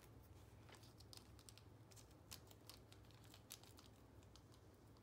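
Near silence with a low room hum, broken by faint, scattered light ticks and rustles of small paper cards being handled between the fingers.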